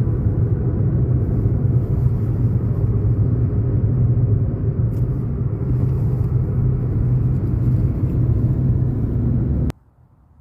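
Car on the move: a steady low rumble of engine and road noise that cuts off suddenly near the end.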